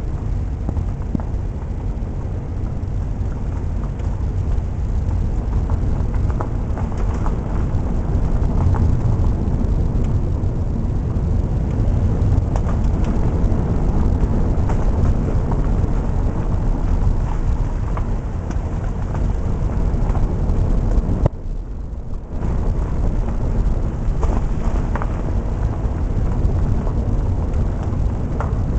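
Road noise of a car being driven: a steady low rumble with faint scattered knocks. It dips briefly about two-thirds of the way through.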